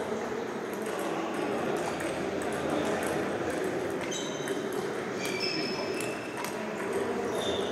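Table tennis rally: the celluloid-type ball struck by paddles and bouncing on the table. From about four seconds in comes a sharp, ringing ping every half second or so, over a steady murmur in a large hall.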